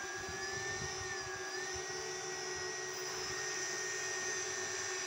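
The ROV's two side thrusters, 2212 930kv brushless motors driven by DIY ESCs, running in a steady high electric whine with a lower hum beneath it. The whine rises slightly in the first second and dips briefly at about a second and a half, then holds steady.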